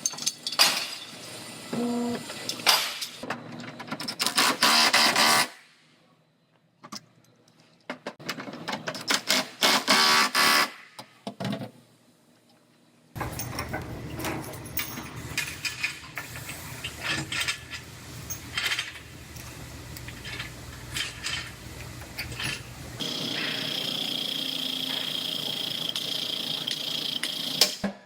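Body-shop pulling work on a frame machine, heard in several edited pieces: clanks and knocks of chains and clamps with bursts of machine noise, a short near-quiet gap, a low steady hum with scattered clicks, and near the end a steady high whine.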